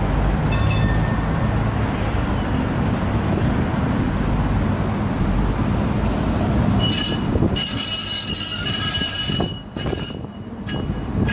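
Croydon Tramlink tram, a Stadler Variobahn, running past close by on street track: a steady low rumble, joined about seven seconds in by a set of high, steady squealing tones as it goes by, with a brief dip in level near the end.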